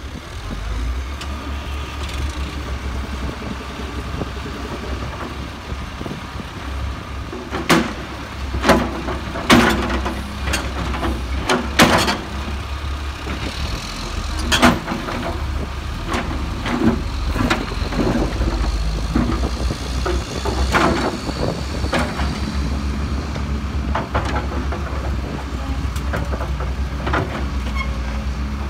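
Case hydraulic excavator's diesel engine running steadily, with a series of sharp clanks and knocks as its steel bucket digs into rocky soil and stones, the thickest cluster of knocks about eight to twelve seconds in.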